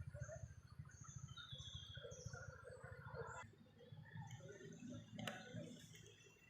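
Faint outdoor ambience: many short, high bird chirps and calls over a low, steady rumble, with one sharp click about five seconds in.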